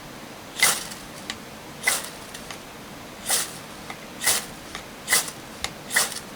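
Steel striker scraped hard down a large, thick ferrocerium firesteel rod, six quick rasping strokes about a second apart. The strikes are repeated because the not fully dried aspen tinder is slow to catch the sparks.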